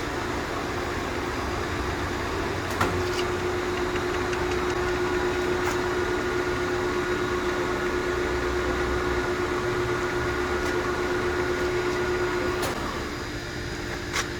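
Acra 2290 engine lathe running, a steady mechanical hum with a clear gear whine that comes up after a click about three seconds in and drops away near the end, with a couple more sharp clicks.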